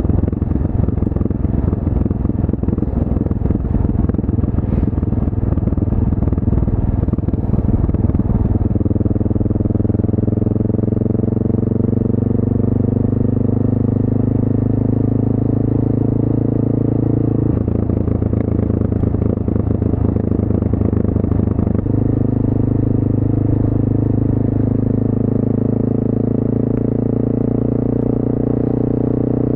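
1988 Honda NX650 Dominator's single-cylinder four-stroke engine running on the move. Its sound is rough and dense at first, turns to a smoother, steadier note that slowly falls in pitch about nine seconds in, goes rough again for about four seconds past the middle, then settles back to the smoother note.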